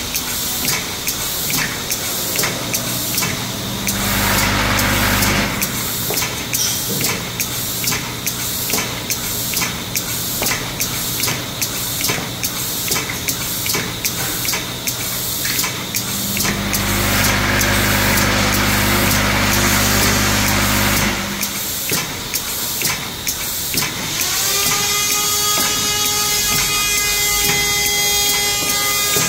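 Vibratory bowl feeder running, with plastic scoops rattling and clicking in a dense, rapid patter as they vibrate round the bowl and along the feed track. Twice a steady electric hum with a hiss swells over the rattle for a few seconds. Near the end a steady whine sets in, its pitch rising as it starts.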